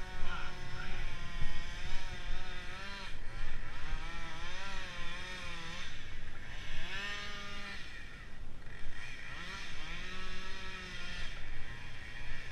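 An engine revs up, holds and drops back about four times, each rise lasting a second or two.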